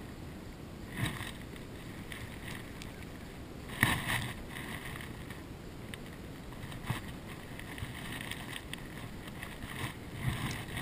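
Small fishing boat on calm water with a steady low wash. A few sharp knocks come from handling the spinning rod and reel, the loudest about four seconds in.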